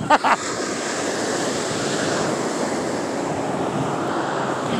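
Steady rush of ocean surf on the beach, with wind on the microphone. Two short vocal sounds at the very start.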